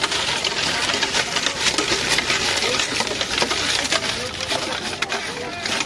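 Steel spoon rapidly scraping and clinking against a stainless steel pot as crisp fried papdi are tossed in masala, a continuous clatter of small metallic clicks and crunches.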